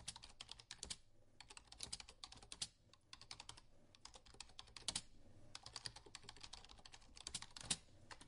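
Faint typing on a computer keyboard: quick runs of key clicks broken by short pauses.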